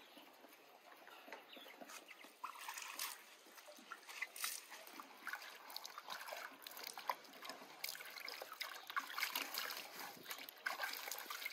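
Water splashing and trickling in uneven bursts, with small clicks scattered through.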